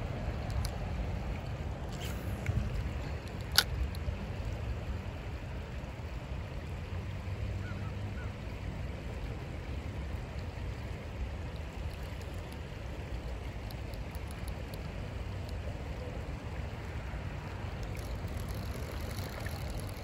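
Steady low outdoor rumble with no speech, holding at an even level, with a single sharp click about three and a half seconds in.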